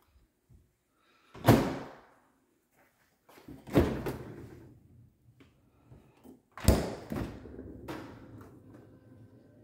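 Cupboard and appliance doors being opened and banged shut in a small house: four separate bangs, about one and a half, four, six and a half and eight seconds in, each followed by a short ring-out.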